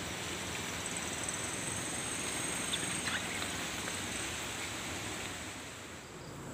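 Leaves and stems rustling and brushing against a phone's microphone as it is carried through dense undergrowth, a steady scratchy noise with a few small clicks.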